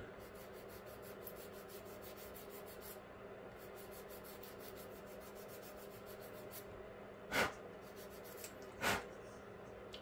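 Light, quick back-and-forth strokes of a sanding stick on the glued seam of a plastic 1/25-scale model car tire, smoothing the raised seam. The strokes stop about two-thirds of the way through and are followed by two short puffs of breath.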